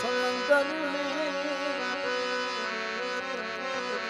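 Harmonium playing a melodic interlude between sung lines, a sustained chord drone under a wavering melody.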